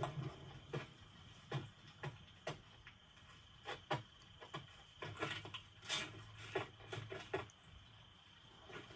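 Animated-film sound effects: a string of short, irregular knocks and clicks that crowd together in the second half, over a steady high insect chirring.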